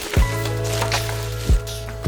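Music with a deep kick drum hitting twice over a held bass note and sustained chords.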